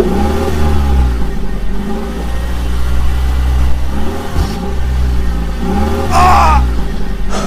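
Vehicle engine running with a steady low drone, revving up and back down three times. A brief higher wavering sound comes with the last rev, about six seconds in.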